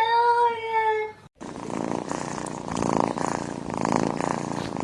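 A domestic cat's drawn-out meow that ends about a second in, then, after a cut, a cat purring steadily.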